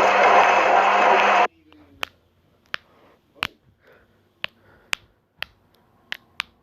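Washing machine running with a loud, steady whir and hum that cuts off suddenly about a second and a half in. Sharp single clicks follow at uneven intervals, roughly one or two a second.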